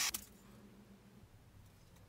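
Belt grinder winding down to a stop, its last faint low hum dying away about a second in, with a single sharp click just after the start; otherwise near-silent room tone.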